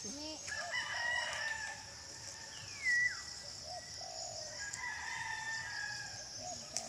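Roosters crowing, one crow about a second in and another around five seconds in, over a steady high insect hiss. A bird's sharp falling whistle cuts across twice; the louder one comes about three seconds in.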